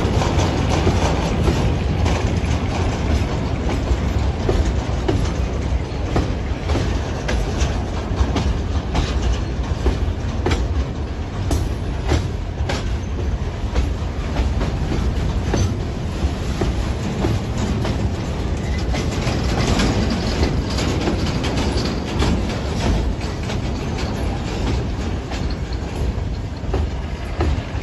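Freight train wagons rolling past, their wheels clicking steadily over the rail joints.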